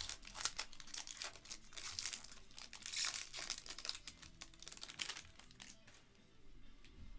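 Foil trading-card pack wrapper being torn open and crinkled off a stack of cards, a dense crackling that is loudest about three seconds in and dies away near six seconds.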